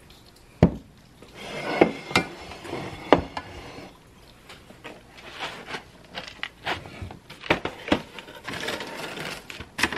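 Kitchen handling noises: a spoon scraping and clinking in a mixing bowl of cheese filling, with sharp knocks as baking dishes and a cardboard box are set down on the counter.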